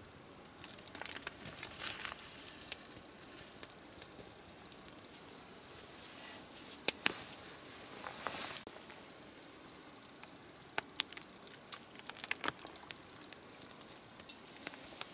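Small fatwood campfire with a pot of snow-melt water heating over it: a faint steady hiss with scattered crackles and sharp clicks, a few of them louder. Some crinkling of a wrapper being handled.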